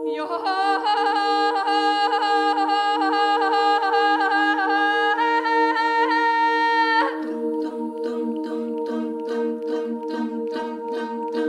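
Choral music: low notes held steady as a drone under a higher wavering melodic line that pulses regularly and stops about seven seconds in. After that, a quick, evenly spaced rhythmic pulsing continues over the held drone.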